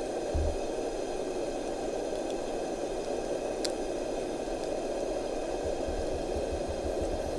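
Open wood fire burning steadily with a hissing rush, with one sharp crackle of wood about halfway through.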